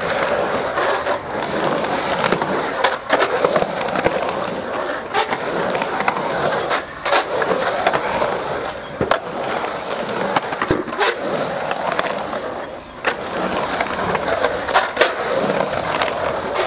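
Skateboard wheels rolling steadily on the concrete of an empty swimming pool, with sharp clacks from the board every second or two as the skater carves the bowl.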